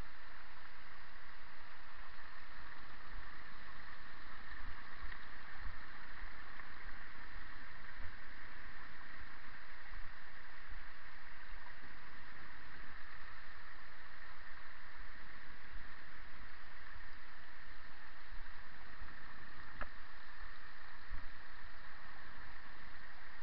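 Steady rushing noise of a bicycle rolling down a rocky forest track, with scattered dull low knocks as it jolts over stones.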